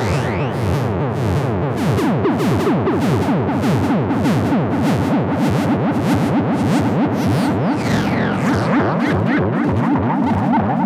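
Modular synthesizer patch with a self-oscillating Nyle filter at maximum resonance, sent through a phaser and delay. It plays a dense stream of fast gliding pitches, mostly falling and overlapping in echoes, over a rapid, even pulsing.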